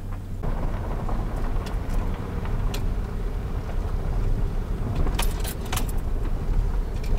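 Vehicle driving slowly on an unpaved track, heard from inside the cab: a steady low engine and tyre rumble with rattles and sharp clicks, a quick cluster of clicks about five seconds in.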